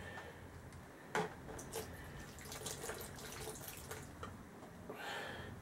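Water poured from a small cup over a freshly blued steel air-rifle barrel, trickling and dripping into a bucket as the bluing is rinsed off, with a light knock about a second in.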